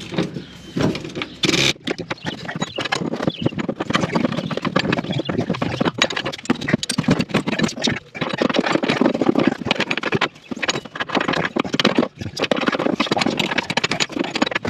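Ratchet wrench clicking in rapid, irregular runs of clicks, broken by short pauses about 8, 10 and 12 seconds in.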